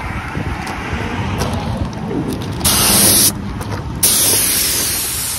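Compressed-air paint spray gun hissing in two blasts, a short one just before the middle and a longer one near the end, over wind rumbling on the microphone.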